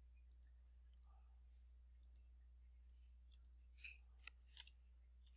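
Faint, scattered clicks of a computer keyboard and mouse as a spreadsheet formula is typed in, some in quick pairs, over a low steady hum.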